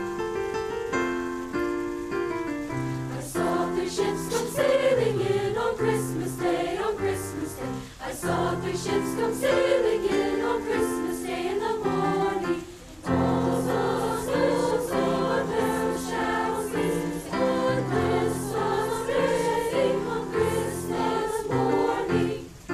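Student choir singing with piano accompaniment, pausing briefly about halfway through.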